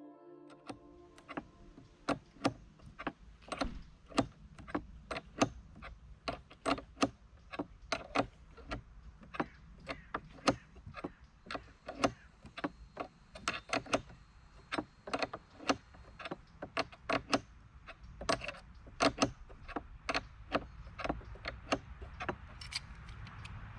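Hand-tool work: a long irregular run of sharp taps and knocks, roughly two to three a second.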